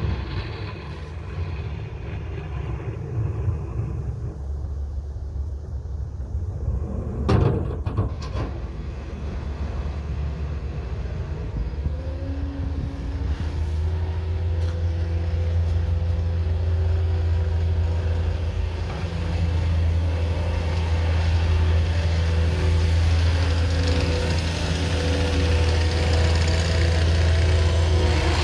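Diesel engines of a backhoe loader and a Cat 259D3 compact track loader running under load while clearing snow, a steady low drone that grows louder from about halfway as the track loader comes close. A brief loud knock about seven seconds in.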